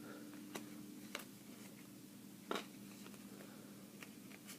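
Trading cards being handled and flipped through: a few faint clicks, the loudest about two and a half seconds in, over a steady low hum.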